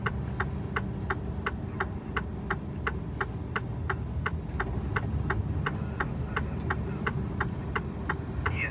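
Truck cab turn-signal indicator ticking evenly, about three ticks a second, over the steady low rumble of the diesel engine running.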